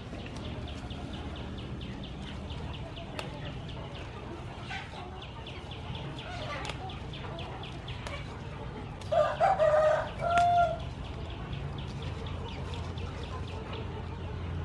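A rooster crowing once, about nine seconds in, in two parts with a shorter final note, over a steady background of fast, even high-pitched ticking.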